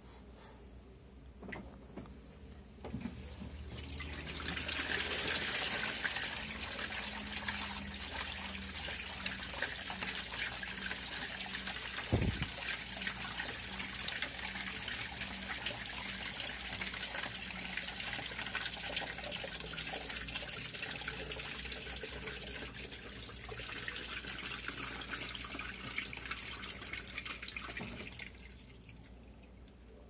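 Top-load washing machine agitating a load of white laundry in water: the motor hums and the water and clothes slosh in the tub, starting a few seconds in and stopping a couple of seconds before the end. There is one thump about twelve seconds in.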